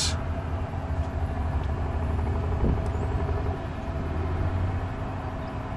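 Steady low mechanical rumble with a faint constant hum, with no clear starts or stops.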